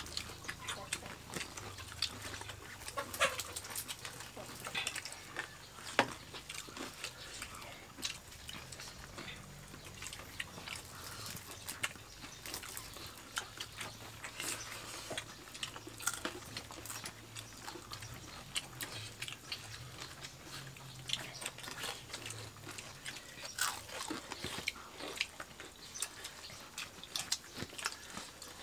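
People eating by hand close to the microphone: chewing, lip-smacking and many small wet clicks, with a faint low hum underneath.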